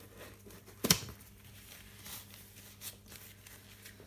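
Small handling noises of tools and parts on a workbench, with one sharp knock about a second in, like an object set down hard. A faint steady low hum runs underneath.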